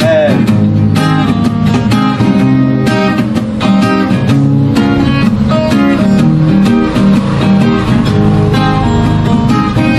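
Background music led by plucked and strummed guitar, with notes struck in a steady rhythm.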